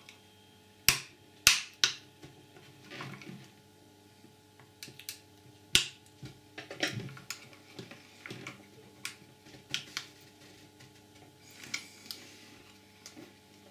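White plastic case of an Apple MagSafe power adapter being forced apart by hand: a series of sharp snaps and cracks as the case clips give way, with smaller clicks and scraping of plastic between them. The loudest two cracks come about a second in and half a second apart, and another sharp snap comes near the middle.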